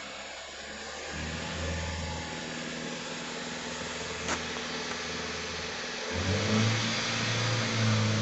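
Hyundai i20 engine revving. It runs at a modest pace, then steps up sharply to a louder, higher rev about six seconds in, with a brief click a little past the middle.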